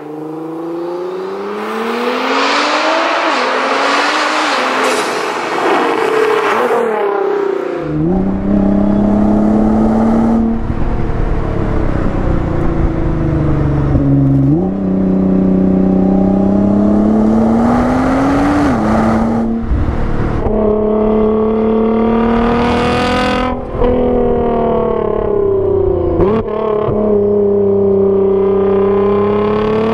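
A 2014 Nissan GT-R's twin-turbo V6 accelerating hard. For the first several seconds it is heard from the roadside, rising in pitch as the car comes closer. After that it is heard from inside the cabin with a deeper rumble, climbing through the gears with an upshift about every four seconds, each a sharp drop in pitch.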